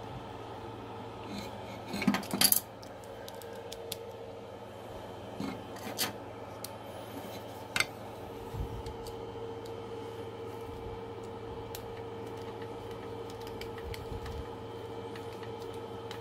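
Small plastic and metal parts being handled and fitted at a 3D printer's extruder: scattered sharp clicks and clatters, the loudest about two seconds in, over the steady hum of the switched-on printer.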